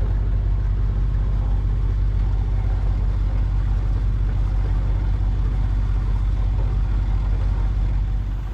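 Sailboat's inboard engine running steadily at a constant pitch while motoring.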